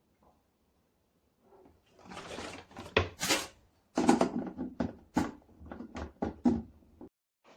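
Groceries being packed into a fridge: plastic packaging rustling, then a quick series of knocks and clunks as items and containers are set down on the shelves.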